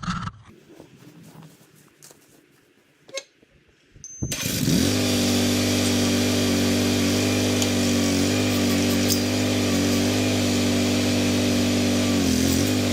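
Boxer 320 mini skid steer engine starting up about four seconds in, catching at once and running steadily at a constant speed; its pitch wavers a little near the end. A faint click comes just before it starts.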